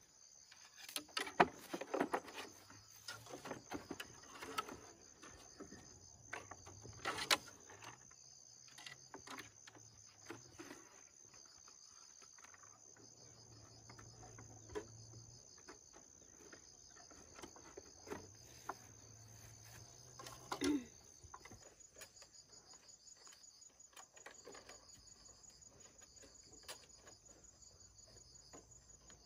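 Insects chirring steadily in a high pitch, with a fine pulsing, and scattered knocks and clatter on top; the sharpest come about a second in, about seven seconds in and about twenty seconds in.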